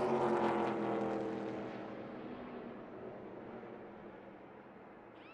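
A pack of NASCAR race trucks' V8 engines going past at full speed, the engine note loudest about half a second in and dropping in pitch as they pass, then fading away.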